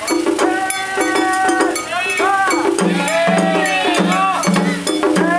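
Japanese festival float music (matsuri-bayashi): taiko drums keeping a steady beat and a small metal hand gong clanging in rhythm. Over them a high melody holds notes and then slides up and down in pitch.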